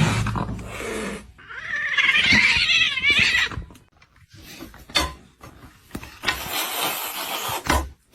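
A cat's drawn-out, wavering yowl, about two seconds long, starting about a second and a half in. A stretch of hiss-like noise follows near the end.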